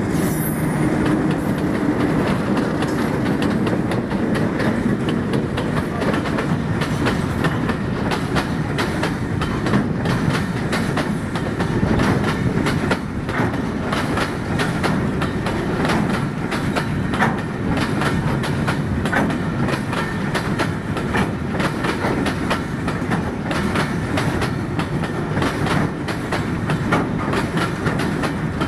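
Freight train wagons rolling past at close range: a steady rumble with the wheels clacking over the rail joints.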